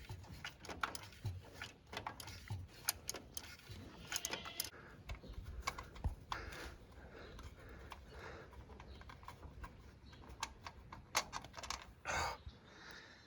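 Light, irregular clicking and clinking of a socket wrench on extensions working a starter mounting bolt loose.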